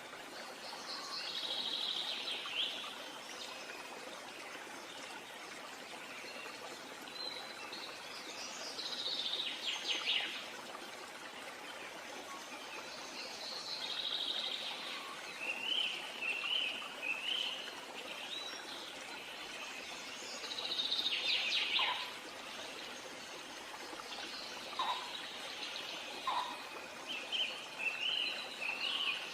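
Birds singing: a warbling song phrase comes back every six seconds or so, with short chirps in between, over a steady hiss.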